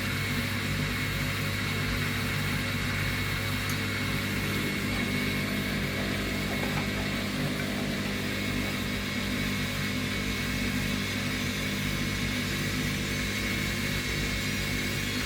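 Bosch Classixx and Hoover washing machines running their final spin: a steady motor hum and drum rumble with a faint high whine over it.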